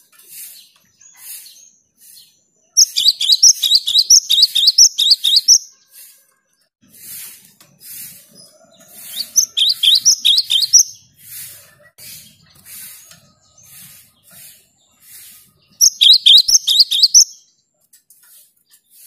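Cinereous tit (gelatik batu) singing: three bouts of rapid, high repeated notes, the first about three seconds in and the last near the end, with fainter repeated calls between the bouts.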